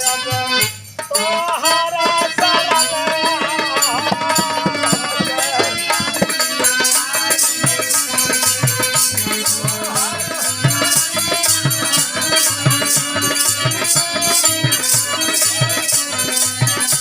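Bhojpuri birha folk music played live without singing: a hand-drum beat, a rattling shaker or cymbal rhythm and a wavering melody line. The music drops out briefly about a second in. From about seven seconds in, the high rattle keeps an even beat.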